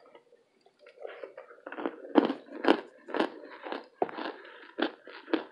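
Crunching and chewing of a burnt cornstarch brick in the mouth: quiet at first, then from about a second in a run of crisp crunches, about two a second.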